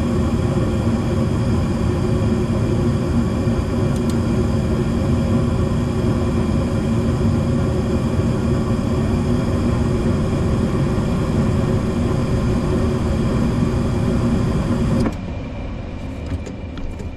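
Gas furnace running: a loud, steady whir from its fan motor and burner, with a low hum, cutting off suddenly about fifteen seconds in.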